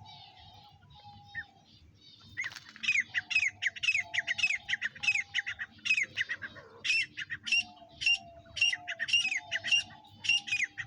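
A teetar (francolin) calling: a long, rapid run of harsh, squawking notes, each falling in pitch, several a second, starting about two seconds in after a few faint chirps. A quieter, lower note repeats between them.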